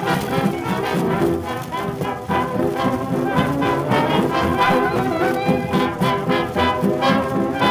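Background music led by brass instruments, a band playing a steady, rhythmic tune.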